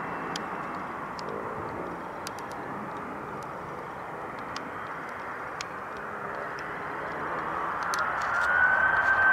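Jet airliner engines running with a steady rumble. Near the end a whine rises and then holds as one steady high tone, and the sound grows clearly louder.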